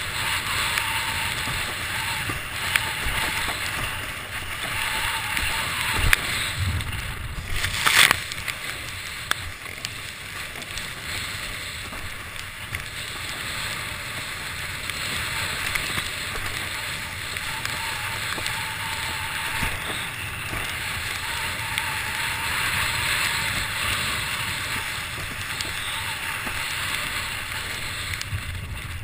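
Windsurf board and rig sailing over choppy water: a steady rush of wind and water, with a few sharp knocks about six and eight seconds in.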